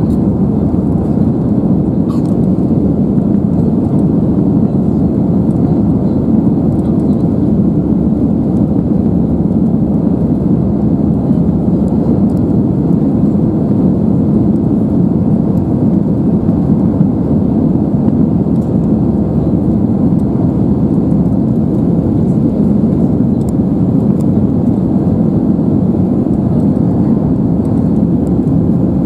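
Steady cabin roar of an Airbus A320-200's jet engines and rushing airflow as the airliner climbs after takeoff, heard from inside the cabin.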